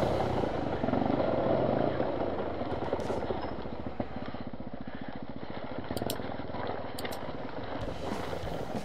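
Off-road motorcycle engine running as the bike rides a dirt trail, loudest at the start and easing to lower revs over the first few seconds.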